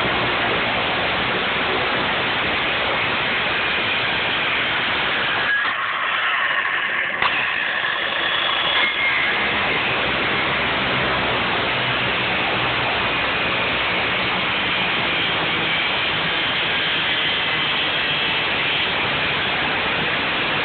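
Ryobi One+ 18V cordless circular saw running steadily and cutting through a pine 2x4 on a rebuilt 2200 mAh battery. The sound dips briefly about five and a half seconds in, then carries on at the same steady level.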